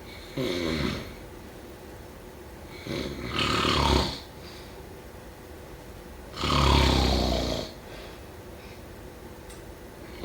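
Snoring during sleep: three snores about three seconds apart, the first short, the second and third longer and louder, each swelling and then dying away.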